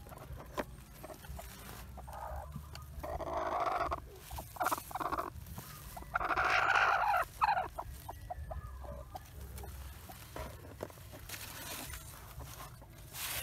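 Sitting hen calling as eggs are taken from beside her: a harsh call about three seconds in, a few short clucks, then a louder, longer call about six seconds in.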